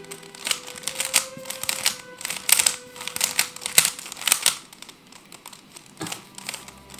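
Rubik's cube layers being turned by hand: a fast clatter of plastic clicks in quick runs, thinning out after about four and a half seconds, with a few more clicks near the end.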